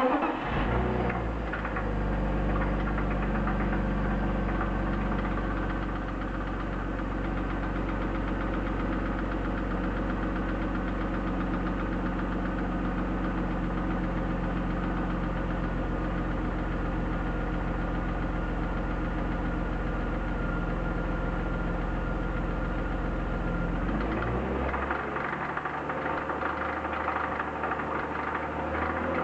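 BMW M52B25 2.5-litre straight-six (E36 323i) running at idle with a knock, loudest at the front of the engine over the VANOS unit. The owners are unsure whether it comes from the crankshaft bearings, the VANOS or the timing chain; new hydraulic lifters and a new upper chain tensioner have not cured it. The engine's tone changes about 24 seconds in.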